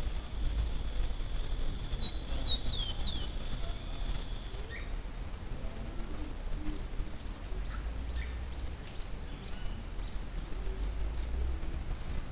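A small wild bird calling: a quick run of four high, down-slurred whistled notes about two seconds in, then a few faint short chirps. Beneath it run a steady high tone that stops about four seconds in, faint regular high ticking, and low rumble.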